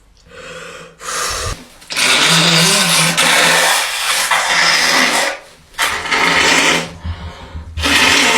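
A person blowing their nose hard in several forceful blows: a short one about a second in, a long one of about three seconds, and two more of about a second each. They are clearing out mucus brought on by garlic cloves in the nostrils.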